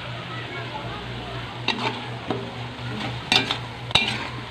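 A metal spatula stirs and scrapes pork chunks in a wok of sizzling, reducing soy-based sauce, with sharp clicks of the spatula against the wok about one and a half, three and a half and four seconds in. The sauce is cooking down and nearly dry.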